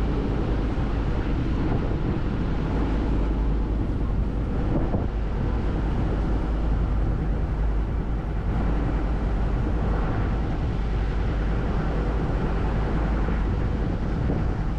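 Steady, loud rumble of a tour boat's engine mixed with the rush of the Rhine Falls' water, with wind buffeting the microphone.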